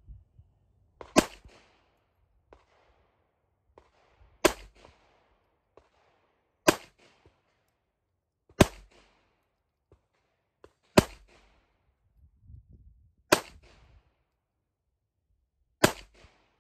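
Ruger LCP II .22 LR pocket pistol firing Aguila high-velocity rounds in slow aimed fire: seven sharp shots, one every two seconds or so. The pistol cycles each round without a failure.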